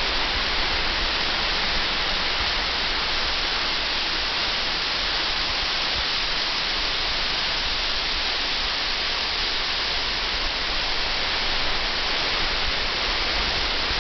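Water falling down a tall wall-face waterfall into a pool: a steady, even rush of falling water.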